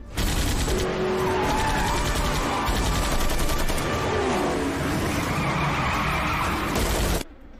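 Action-film car-chase soundtrack: rapid machine-gun fire over cars driving and tyres skidding. It drops away suddenly near the end.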